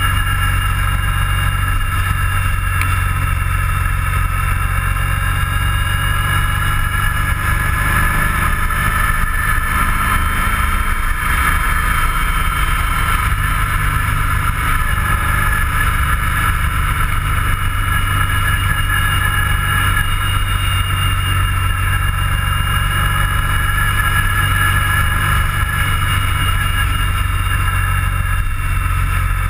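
Steady drone of a vehicle cruising at a constant speed, heard from a camera mounted on it: a loud low rumble of engine and road noise with a steady whine above it.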